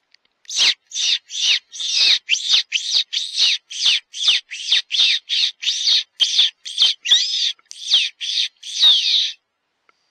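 Hand-blown fox whistle (Best Fox Call) giving a rapid series of about twenty short, high squeals, each falling in pitch, about two a second: a distress-squeal call used to draw in foxes.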